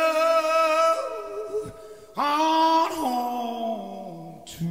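Male lead vocal in a live rock recording, sung with little or no accompaniment: a long held note, a short break, then another held note that slides slowly downward.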